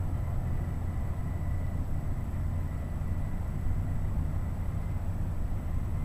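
Wind buffeting the microphone: a steady low rumble with a fluttering level, and faint thin high-pitched tones under it.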